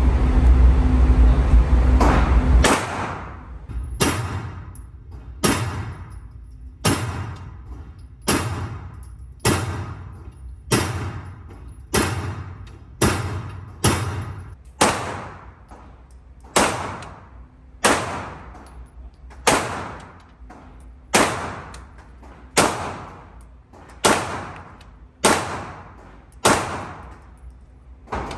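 9mm pistol fired in a long series of single shots, about one a second or a little faster, each crack followed by a short echo. A heavy low rumble fills the first couple of seconds.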